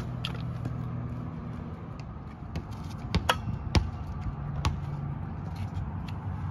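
A kick scooter being stood on and stepped about on concrete: several sharp clicks and knocks over a steady low outdoor hum.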